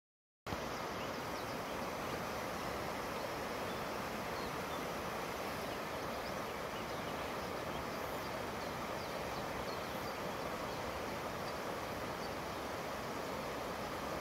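Steady rush of a river flowing over stones, heard through a phone's microphone; it starts abruptly about half a second in.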